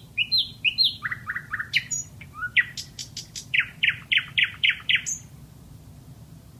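Nightingale singing one varied song phrase: paired high whistled notes, a run of three lower notes, a few sharp clicks, then a fast run of about six repeated down-slurred notes. The phrase ends about five seconds in.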